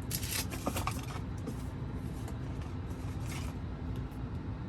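Brief rustles and scrapes of surgical tape being handled and torn, a few near the start and one about three seconds in, over the steady low hum of the car's cabin ventilation fan.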